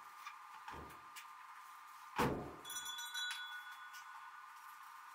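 A few dull thumps, the loudest about two seconds in, followed by a short metallic ring lasting about half a second, over a steady hum.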